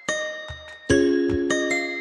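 Background music: gentle bell-like keyboard chords that ring out, with a soft low beat.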